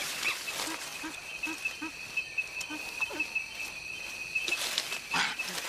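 Young chimpanzees calling as they play: a run of short, evenly spaced low calls, then louder, harsher cries near the end, over a steady high-pitched insect buzz.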